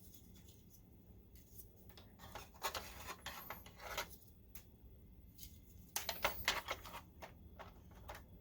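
Faint rubbing, scraping and clicking of a replacement cooling fan being pushed into place in a projector's housing, in two short clusters: one about two seconds in and another about six seconds in.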